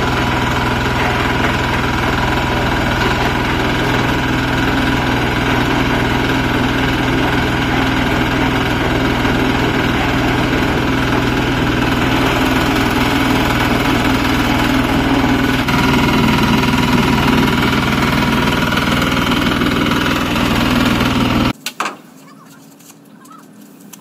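Small drum concrete mixer running with a loud, steady mechanical drone. It cuts off suddenly near the end.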